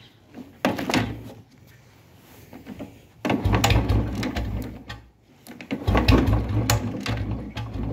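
Royal Enfield Bullet single-cylinder engine being started: a short burst about a second in, then the engine catches about three seconds in, falters briefly near five seconds, and settles into its steady low 'dug dug' thump at idle.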